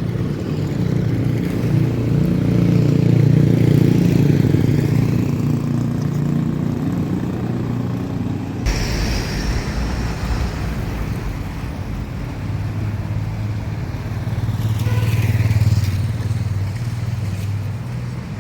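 Road traffic: motor vehicles passing one after another, their engine hum swelling and fading twice. The sound changes abruptly about nine seconds in.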